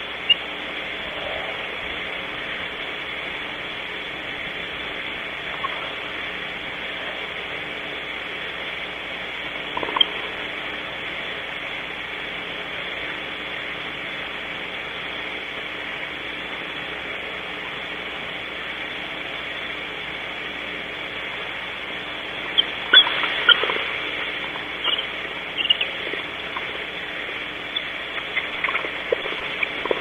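Barn owls shifting and scratching inside a wooden nest cavity: scattered light scrapes and clicks over a steady hiss, thickening into a run of clicks about three-quarters of the way through.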